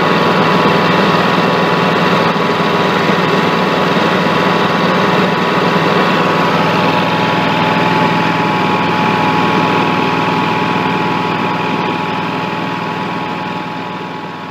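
Kawasaki small engine running steadily, growing fainter over the last few seconds.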